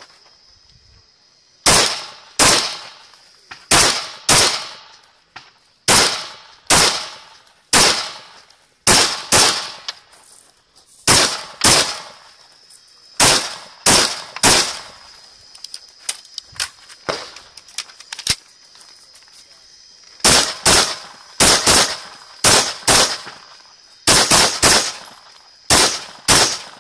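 AR-15 rifle firing at close range, many sharp shots mostly in quick pairs and short strings, with brief pauses between groups.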